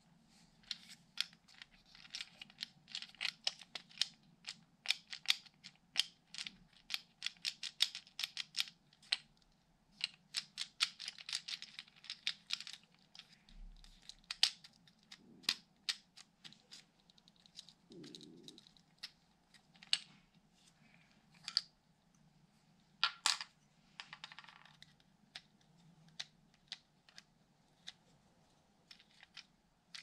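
Quick small clicks and scratches of hands working on the small plastic parts of a car's window switch panel. They come in dense runs through the first half, then thin out to scattered clicks, with a louder cluster a little past two-thirds of the way in, over a faint steady hum.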